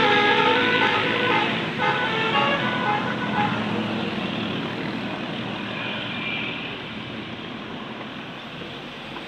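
A tour bus's telolet horn plays its multi-tone melody, which breaks off about a second and a half in. The bus's engine and tyre noise then fades steadily as it drives away.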